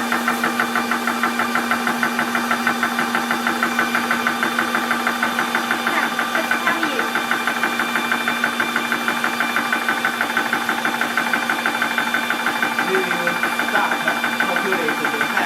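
Portable 12 V 4500 psi PCP high-pressure air compressor running with its cooling fan, its piston pumping in a fast, even beat over a constant hum, as it fills a small aluminium air cylinder with the relief screw closed.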